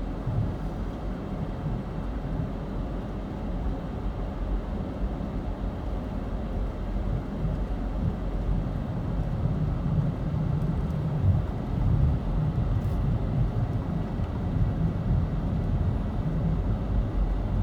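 Small front-wheel-drive car driving, a steady low rumble of engine and road noise that slowly grows louder.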